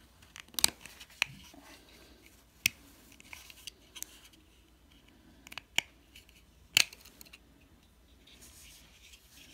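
Several sharp plastic clicks and snaps from the casing of a Salus wireless door sensor being prised apart by hand, with light rubbing of plastic between them.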